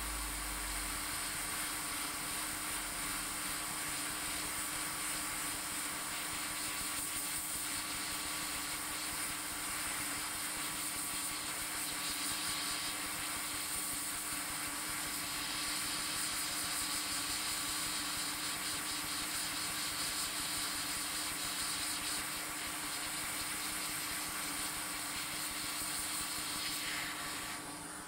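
Hot air rework gun blowing a steady hiss of air with a steady hum under it, falling away just before the end.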